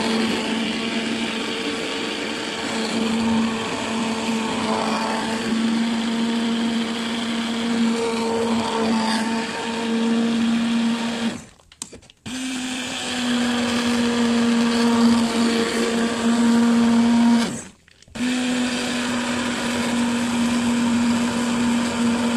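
Electric hand blender running in a pot of boiled lentils, puréeing them, with a steady motor hum. The motor stops twice for under a second, about halfway through and again later, then runs on.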